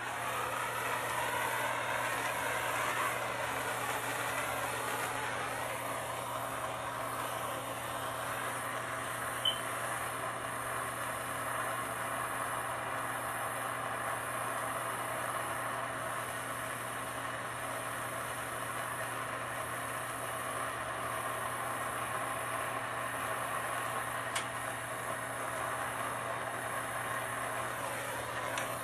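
Hand-held gas soldering torch burning with a steady rushing hiss, its flame heating a copper pipe joint to sweat-solder it. Two faint ticks come through partway in.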